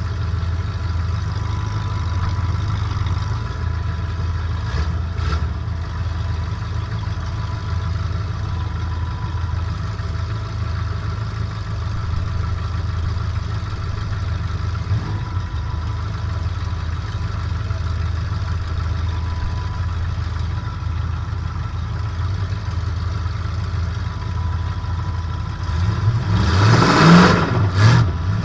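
Metric Caddy demolition derby car's engine running steadily at low revs, heard from inside the stripped cabin, then revving up and back down about two seconds before the end.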